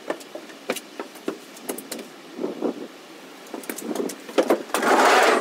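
Footsteps and light knocks on a van's bare steel cargo floor, then a loud rustling, scraping noise near the end.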